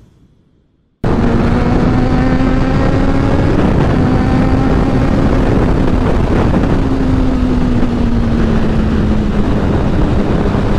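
Honda CBR600RR's inline-four engine running at a steady pitch while riding, with a heavy rush of wind noise over the microphone. It cuts in suddenly about a second in, and its pitch sags slightly a little past halfway as the bike eases off.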